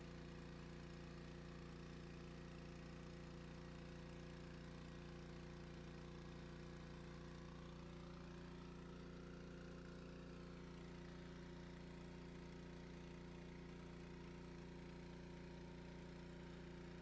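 Near silence with a faint, steady low hum, and a faint rising tone about eight seconds in.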